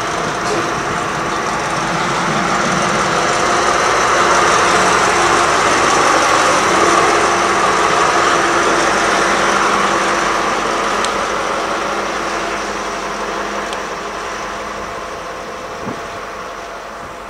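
Diesel locomotive running light past at low speed, its engine a steady drone with several held tones, growing louder to about halfway, then slowly fading as it moves away.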